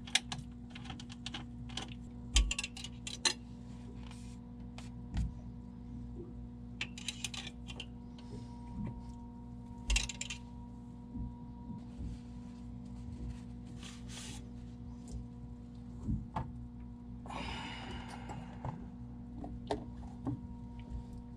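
Hand work on a marine diesel's air intake as the air filter is refitted: scattered small clicks, taps and a few sharper metal clanks, with a scraping rustle a little past the middle of the stretch, over a steady low hum.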